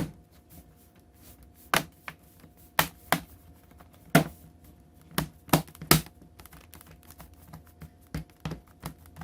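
Plastic bottom cover of an Acer Aspire 5 laptop being pressed back onto the chassis, its clips snapping into place in a series of sharp, irregular clicks, several loud ones in the first six seconds and lighter ones after.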